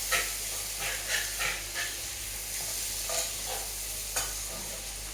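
Food sizzling in hot oil in a pan as a metal spoon stirs it, with a steady hiss and scattered clicks and scrapes of the spoon against the pan.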